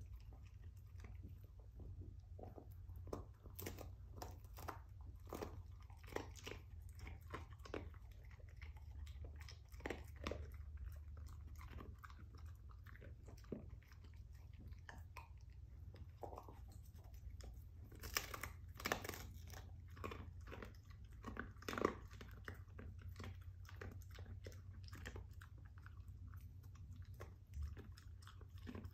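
A dog chewing a rawhide bone: irregular crunches and cracks as it gnaws, with a few louder cracks about two-thirds of the way through.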